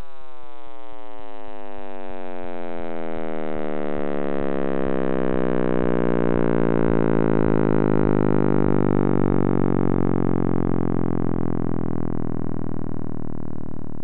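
Computer-made sonification of the Big Bang, built from the cosmic microwave background's sound waves: a dense stack of tones all sliding slowly downward in pitch, swelling a little toward the middle.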